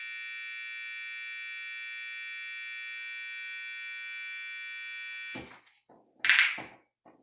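Piezo tweeter wired straight to mains voltage, giving a steady, harsh high-pitched buzz with no bass, still surviving instead of blowing. A bit over five seconds in the buzz breaks off and sputters into a few short, loud crackling bursts.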